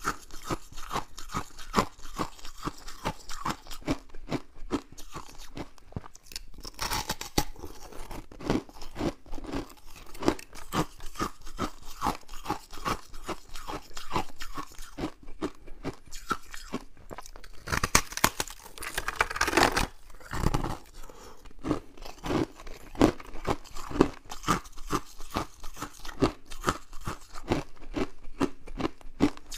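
Close-miked crunching and chewing of fluffy freezer frost: many small crisp crunches a second as it is bitten and chewed, with louder, denser crackling about seven seconds in and again around eighteen to twenty seconds.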